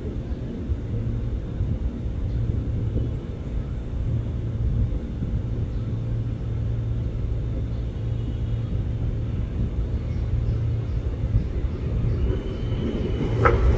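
Tokyo Metro 6000 series electric commuter train approaching slowly, a steady low rumble with a held low hum underneath.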